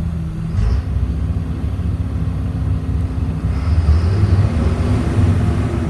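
A 2004 Blue Bird All American school bus engine running at a high idle, growing louder about three and a half seconds in. The engine is stuck on that high idle, which drops only briefly when the brakes are tapped.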